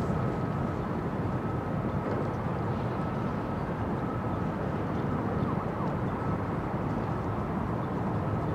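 Steady low rumble of distant dockside machinery and traffic heard across open water, with a faint steady high whine running through it.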